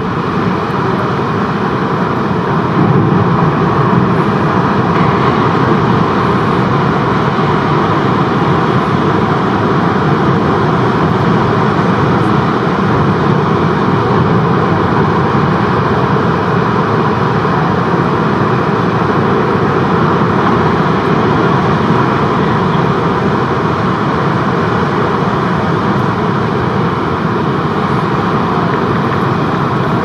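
Heavy breaking surf from giant waves: a loud, steady roar with no pauses.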